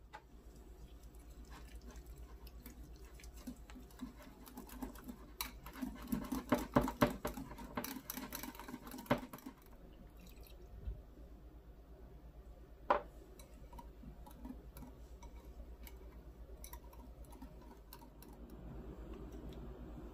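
Food-preparation handling sounds: a run of quick clicks and knocks from about five to nine seconds in, then a single sharp knock near thirteen seconds, over a low steady hum.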